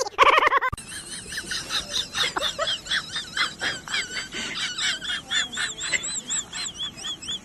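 A brief loud, high-pitched cry at the start, then many small birds chirping rapidly in overlapping high peeps.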